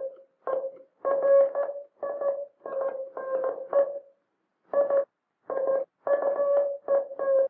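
Morse code sent on a J38 hand key, heard as a steady tone keyed on and off in dits and dahs with uneven gaps. This is the badly rhythmed sending of a key whose gap is too wide or spring too tight: dahs cut short, dits skipped over, spacing erratic.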